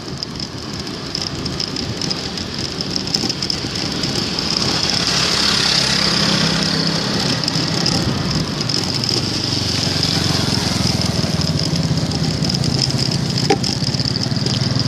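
Outdoor road noise with a motor vehicle's engine running close by, its hum stronger from about a third of the way in until near the end, over a steady high-pitched hiss.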